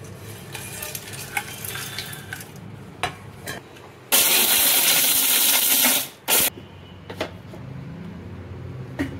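Whole spices (cassia bark, cardamom and cloves) rattling into a small steel mixer-grinder jar, then the electric mixer grinder running dry for about two seconds to grind them to powder, with a short second pulse just after. A few clicks and knocks of the jar and lid follow.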